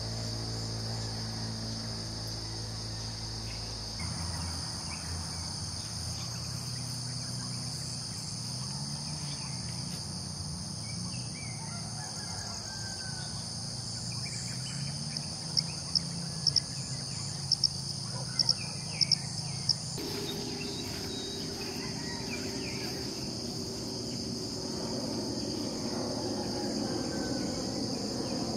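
Crickets and other insects chirring in a steady, high continuous drone, with a low steady hum underneath. About halfway through comes a quick run of about nine sharp clicks.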